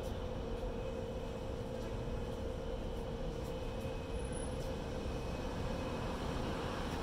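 Steady city street traffic noise: a low rumble with a constant mid-pitched hum, as cars pull through an intersection.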